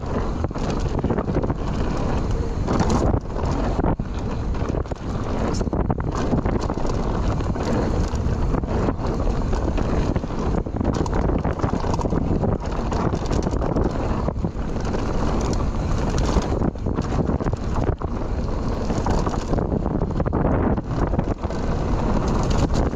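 Mountain bike ridden fast down a dry dirt trail, heard through an action camera: wind buffets the microphone over a steady tyre rumble, with frequent rattles and knocks as the bike hits bumps.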